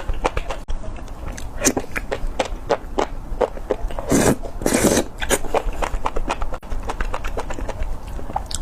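Close-miked chewing and biting of spicy enoki mushrooms: many short, sharp, crisp mouth clicks in a quick irregular run, with two longer, louder sounds about four and five seconds in.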